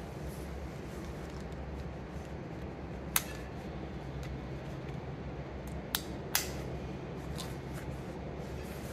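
Sharp plastic clicks as an action camera and a 3D-printed neck mount's latch are snapped together: one click about three seconds in, then two close together about six seconds in. A steady low hum lies underneath.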